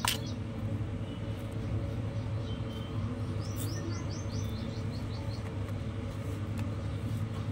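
A small bird chirping in the background: a quick run of about eight short, falling high notes about three and a half seconds in, over a steady low hum, with a sharp click at the very start.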